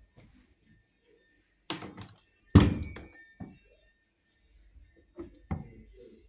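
A string of knocks and thuds from the washing machine's door being handled, the loudest a heavy thunk about two and a half seconds in.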